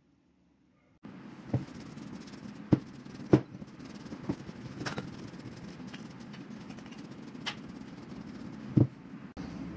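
Rusty metal parts of an old manual meat grinder being handled, with about seven sharp knocks and clanks over a steady background hum. The sound begins about a second in, the loudest knock comes a little over three seconds in, and it cuts off abruptly just before the end.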